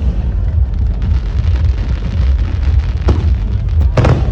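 Aerial fireworks going off: a continuous deep rumble of shell bursts, with sharper bangs about three seconds in and again near the end.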